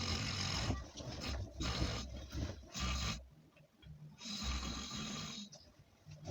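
A man snoring heavily: a run of uneven snores of different lengths with short gaps between them, the longest one near the end.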